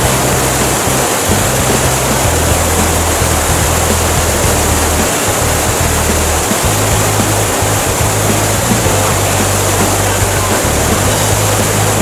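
Wide curtain waterfall (Fukiware Falls) rushing over its rock ledge into the gorge, a loud, even roar of water. Background music with low held notes that change every few seconds plays over it.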